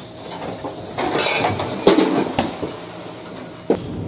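Loose objects clattering and banging about in a ship's cabin as the ship rolls in heavy seas, with two loud crashes a second or so apart. A sharp click comes near the end, then a steady rumble.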